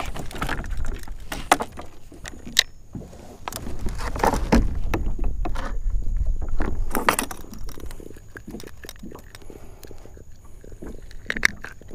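Scattered clicks, knocks and light rattles of an angler handling a just-caught redfish and tackle aboard a plastic pedal kayak, over a low rumble that is strongest in the middle.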